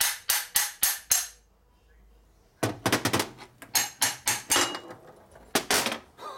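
Ball-peen hammer tapping on a Linkert carburetor body to drive out its venturi: a run of sharp metallic taps, about three to four a second, that stops about a second in. After a pause comes another run of taps, then two last taps near the end.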